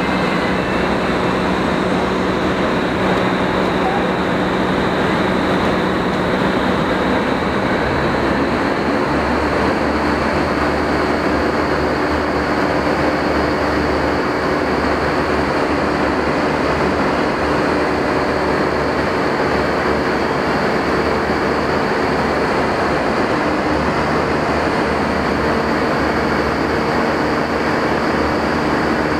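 Vertical wind tunnel running: the steady rush of high-speed air and the drone of its big fans, with a few constant tones riding on the noise.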